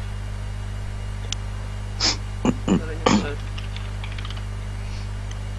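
Steady low electrical hum, with a faint click about a second in and a few short, sharp sounds about two to three seconds in.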